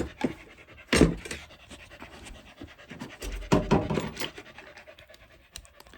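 Handling clatter from rummaging through a drill-bit set, with sharp knocks about a second in and again around three and a half seconds in.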